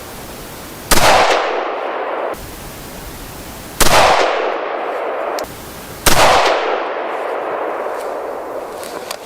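Three rifle shots from the .222 Remington barrel of a Valmet 412 combination gun, fired about three and two seconds apart. Each loud crack is followed by an echo that rings on for a second or so.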